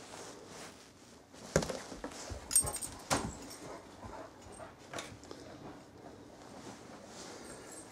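A Great Dane's dog sounds: a few short, sharp sounds, the loudest between about one and a half and three seconds in, and another near five seconds.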